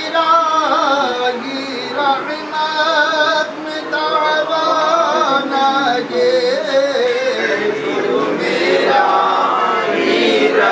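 A male voice singing a slow devotional nasheed, drawing out long notes that waver and slide in pitch.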